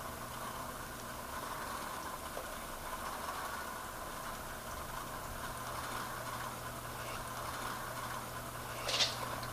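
Aquarium equipment running with a steady electric hum, and one brief sharp noise near the end.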